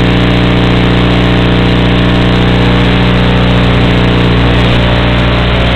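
Micro Pitts S1 model biplane's motor and propeller running steadily, picked up loud and buzzy by the onboard camera: a steady drone of constant pitch with several evenly spaced tones.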